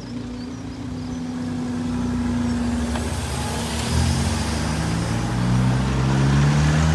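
Level crossing barriers lifting, with a steady hum for about the first three seconds. Then queued cars pull away over the crossing, their engine noise growing louder toward the end.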